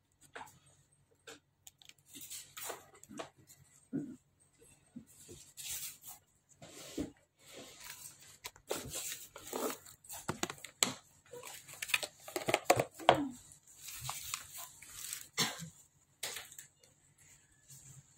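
Irregular crinkling and rustling of plastic packaging, with scattered clicks and taps from a phone screen and phone frame being handled. The crackling is busiest in the second half.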